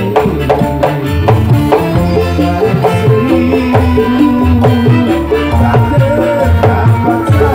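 Live dangdut band music: hand drums struck in a quick rhythm under a sustained melody line.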